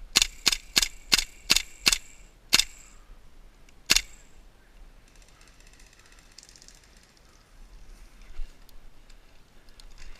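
Gas blowback airsoft rifle (KWA LM4) firing eight sharp shots: six in quick succession at about three a second, then two more spaced out, with only faint rustling after.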